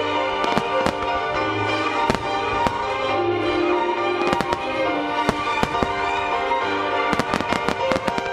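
Starmine fireworks: aerial shells bursting with sharp reports every second or so, then a rapid run of bursts near the end, with music playing throughout.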